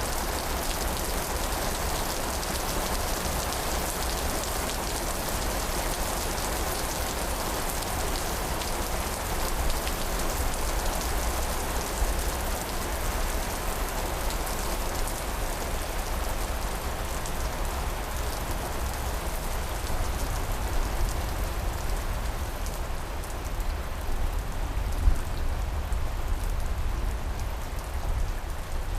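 Steady, heavy rainfall hissing and pattering without a break, over a constant low rumble, with a couple of brief louder spots about twelve seconds in and near the end; no distinct thunder clap.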